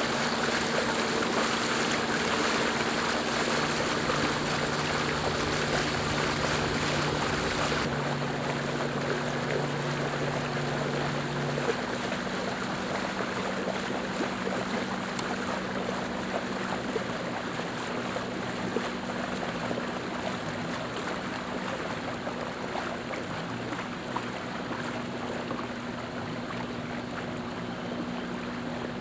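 Steady drone of a boat's engine under way, with a few constant low hum tones, over an even rush of water and air noise.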